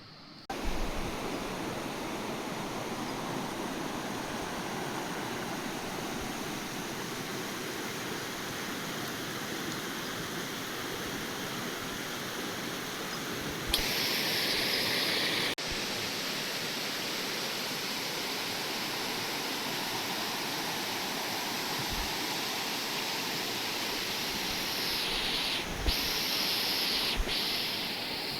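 Steady rushing of running water, a rainforest stream or waterfall, with a brighter high hiss joining for about a second and a half midway.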